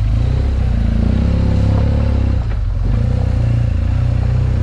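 Adventure motorcycle engine running steadily at low revs, with a brief dip in the sound about two and a half seconds in.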